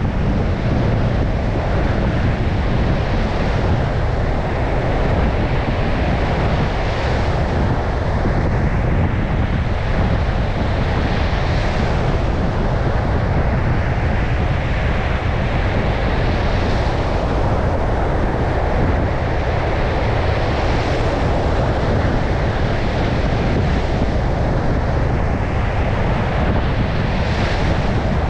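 Surf pounding a beach in a strong wind, with wind buffeting the microphone as a steady low rumble. About six waves surge in and break, each a few seconds apart.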